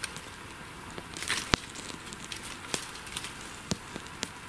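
Wood campfire crackling, with irregular sharp pops and a short hissing swell about a second in.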